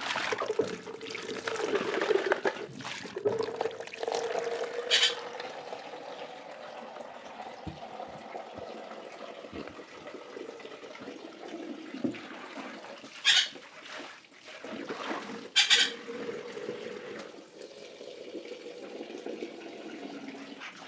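Water being emptied out of a washing machine tub, running and splashing with a steady hum under it, and three sharp splashes or knocks about five, thirteen and sixteen seconds in.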